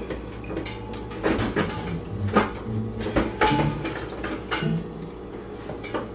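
A string of irregular knocks and clatters of household things being handled, like a cupboard door and objects set down, the loudest about two and a half seconds in.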